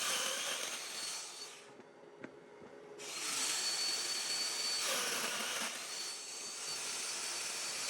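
Domino joiner's motor running with a steady high whine while cutting mortises in the oak legs. It spins down about one and a half seconds in and starts up again sharply at about three seconds.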